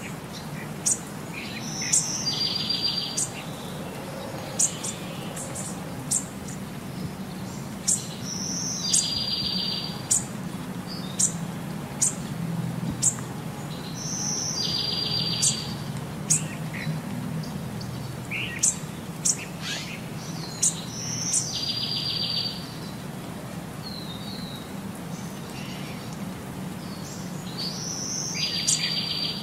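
Looped birdsong track. The same trilled chirping phrase comes back about every six and a half seconds, with short, sharp high chirps in between.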